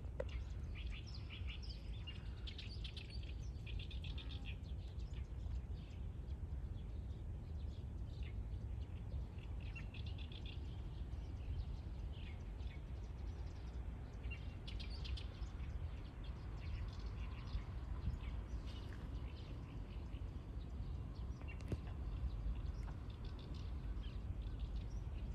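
Small birds chirping in quick, short phrases, scattered through the whole stretch over a steady low rumble.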